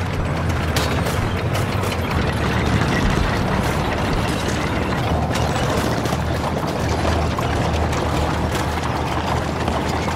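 A tank's engine running with a deep, steady rumble while its tracks clank and rattle as it moves. Scattered sharp cracks are mixed in.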